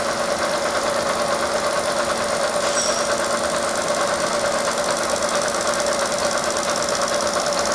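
Bridgeport milling machine's cutter head spinning and face-milling a thin plastic sheet, a steady cutting noise with a fast, even pulsing.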